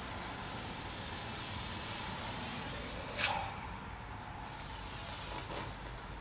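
Zippo stormproof match burning with a steady hiss, with a brief sharp flare-up about three seconds in.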